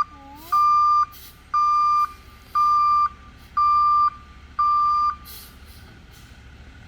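Vehicle backup alarm beeping steadily, one half-second beep about every second, five times, then stopping about five seconds in. A low steady rumble runs underneath.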